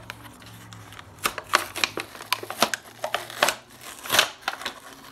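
Cardboard and clear plastic toy packaging being wrenched apart by hand: a quick run of sharp crackles, snaps and rips that starts about a second in.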